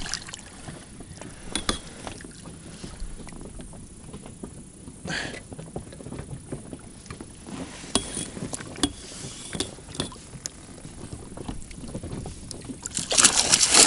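Water lapping and splashing at the side of a small boat while a hooked pike is played in. Near the end there is loud splashing as the pike thrashes and is scooped into a landing net.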